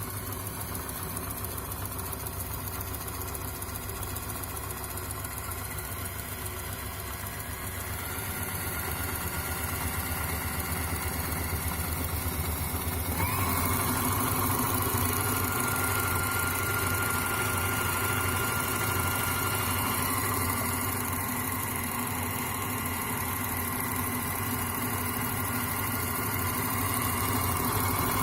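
Electric sewing machine running steadily with a rapid mechanical patter; about halfway through it gets louder and a higher whine rises in and holds.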